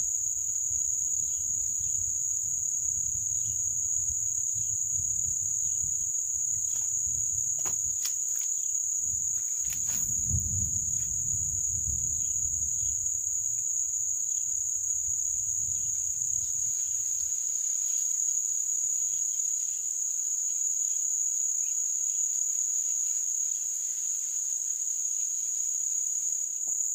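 Insects buzzing steadily in one high, unbroken drone. A low rumble sits under it through the first half, with a few faint clicks.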